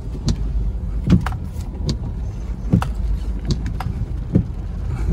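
Inside a car driving along a rough road: a steady low rumble of engine and road, with irregular knocks and clunks from the car's body and suspension about eight times as it jolts along.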